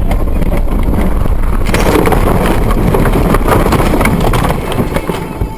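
Car sliding off a snowy road and rolling over into deep snow: a rush of crunching, knocking and scraping from about two seconds in, fading near the end, heard from inside the car.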